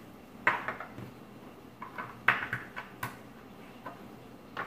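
Small glass essential-oil bottles and their caps clicking and clinking as they are handled, opened and set down on a table: a string of irregular sharp taps, the loudest about half a second and two seconds in.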